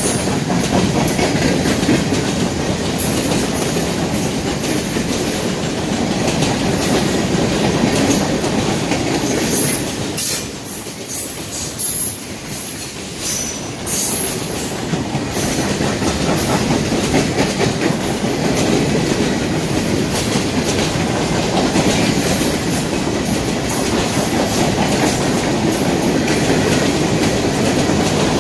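Freight train of boxcars rolling past at speed: a steady rumble and clatter of steel wheels on the rails, with short high squeaks now and then. It goes briefly quieter about ten seconds in.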